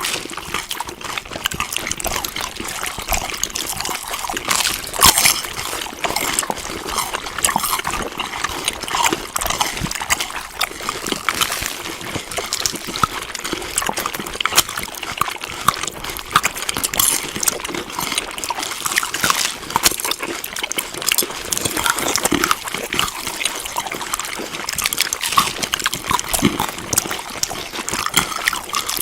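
Wet chewing and eating sounds: a continuous run of small smacks, clicks and crunches.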